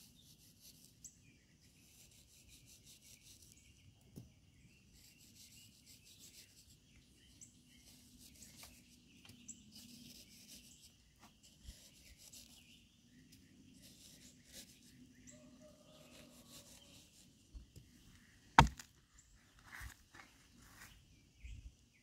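Small metal knife blade scraping and cutting into packed damp sand, making a string of soft gritty scrapes about a second each as sand crumbles away. One sharp click about three quarters of the way through is the loudest sound.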